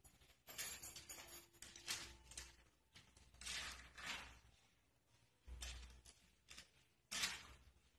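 A cat hanging from a door's lever handle and scrabbling against the door: a handful of faint, irregular scrapes and rattles from its claws and the shaking handle.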